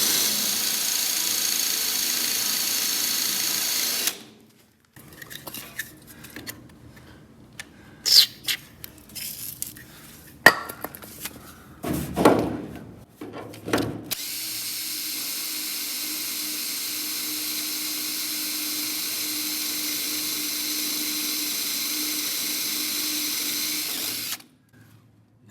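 Power drill with a 1/4-inch bit boring into the steel door hinge of a 1974 Ford F250: a steady run of about four seconds, then several clinks and knocks as the drill is repositioned, then a longer steady run of about ten seconds that cuts off near the end.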